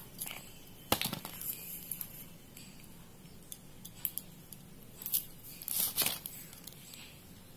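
Close handling sounds of paper crafting: scattered short clicks, clinks and paper rustles as a plastic glue tube is squeezed onto a rolled strip of quilling paper, with the loudest clicks about a second in and around six seconds in.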